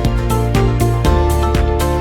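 Background music with a steady beat, bass and sustained synth notes.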